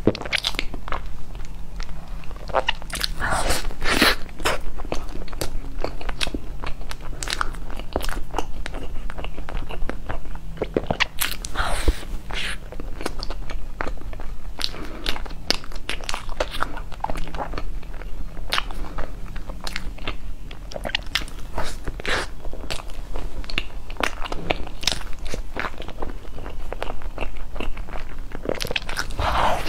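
Close-miked eating sounds: a person biting into and chewing a soft cream-filled pastry, with many irregular sharp crackles and wet mouth clicks.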